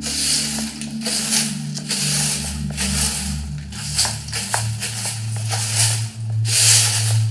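Long-handled broom sweeping the ground in repeated scratchy swishes, about one a second, the strongest strokes near the end. Steady background music with low held tones runs underneath.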